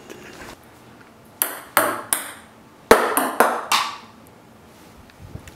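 Ping-pong ball bouncing on a hard tile floor: three quick bounces, then after a short gap four more, each a sharp ringing tick.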